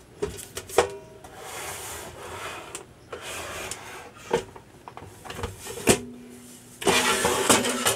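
Outer cover of an Agilent E3632A power supply being handled and slid off the chassis: several sharp knocks as the unit is tipped on end and the cover shifts, between stretches of scraping and rubbing as the cover slides. The longest and loudest scrape comes near the end.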